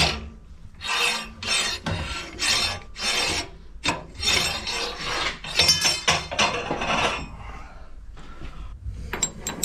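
Long metal bar being slid out through a lathe chuck and hollow spindle in repeated hand pulls, scraping against the metal with a rasping stroke about once or twice a second, dying down after about 7 seconds.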